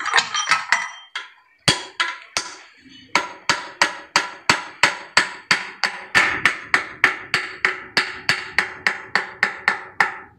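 Hammer blows on a steel car ball joint being reconditioned, each strike ringing briefly: a few scattered hits, then a steady run of about three blows a second.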